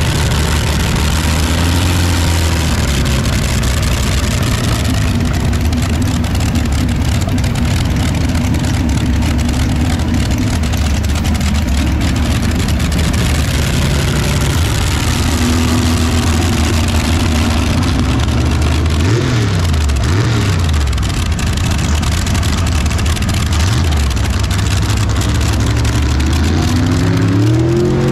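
Pulling tractor engine running steadily and loudly, with quick throttle blips about two-thirds through and the revs climbing near the end.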